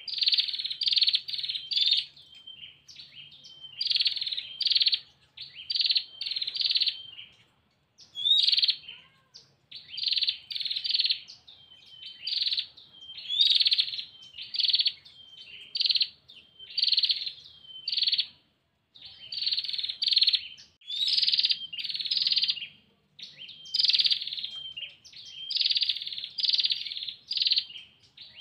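Female prenjak (prinia) giving its rapid, buzzy trilling call (ngetir) over and over, in quick runs of several notes broken by short pauses. This is the female's call to a male.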